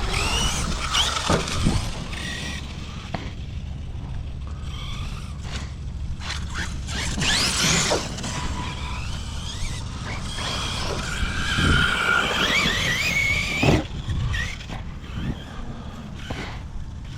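Large electric RC trucks' brushless motors whining, the pitch rising and falling as they speed up and slow down, with several thumps as the trucks land and hit the ground.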